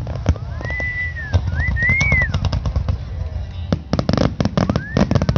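Aerial firework shells bursting in a rapid barrage: many sharp bangs and crackles over a continuous low rumble. Whistling tones rise, hold and fall twice in the first half, and again near the end.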